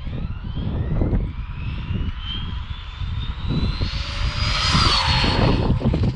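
Brushless motor and drivetrain of a 1/8-scale RC car with a Hobbywing Max6 1650kv combo, whining in a steady rising pitch as the car accelerates flat out on a speed run. The whine is loudest at top speed for a second or so, about four to five seconds in, then drops off near the end, over a constant low rumble of wind and tyre noise.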